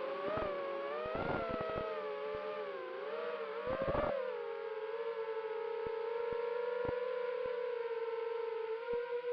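Brushless motors of an FPV freestyle quadcopter whining, the pitch rising and falling with the throttle for the first four seconds or so, then holding nearly steady. A few brief clicks are scattered through it.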